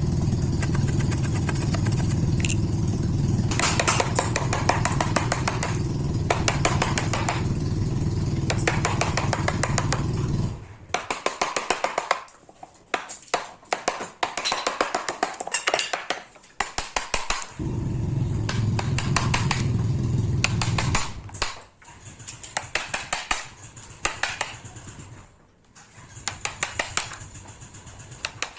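A workshop machine's motor runs with a steady low hum, cuts off about ten seconds in, and runs again briefly later. Throughout, a fast run of sharp clicks or taps goes on.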